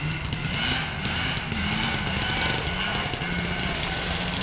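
A vehicle engine running steadily, its low note rising and falling a little.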